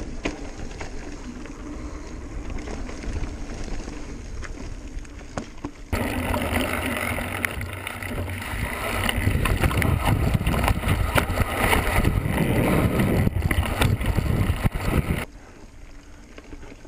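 Mountain bike descending a rocky dirt downhill trail at speed: continuous tyre rumble on dirt and rock, rattling of the bike, and wind buffeting the camera microphone. It gets louder and harsher about six seconds in and drops back near the end.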